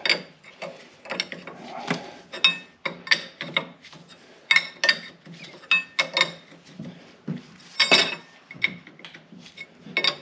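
Hand tools working on the tractor's metal fittings: irregular clicks and clanks with a short metallic ring, as wrenches and a ratchet are set on and worked at fittings and bolts.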